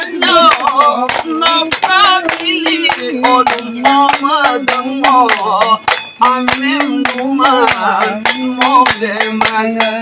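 A man singing a folk song, his voice moving in held, stepped notes, while a group claps hands in a steady rhythm.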